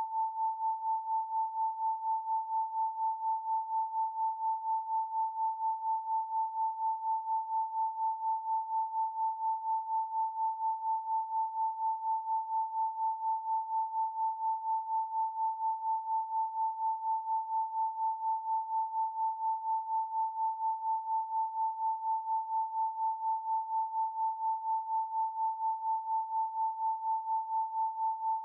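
A steady pure sine tone at 888 Hz, a single unchanging pitch with no other sound. Its loudness pulses evenly, about four times a second.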